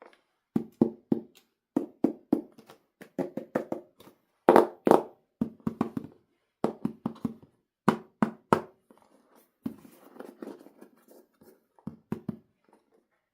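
Hands handling toys: a quick, irregular run of knocks and taps, the loudest about four and a half seconds in, with softer rustling around ten seconds.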